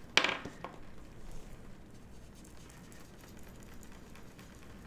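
An inked foam blending tool rubbing and dabbing across cardstock, a faint scratchy brushing, after a short louder knock just at the start.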